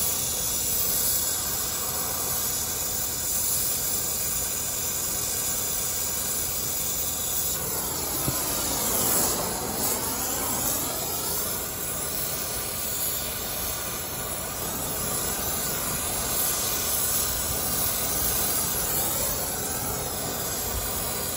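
Oxy-acetylene brazing torch burning with a steady hiss as copper refrigerant line joints are brazed to a new AC compressor. The tone of the hiss sweeps down and back up once about eight seconds in.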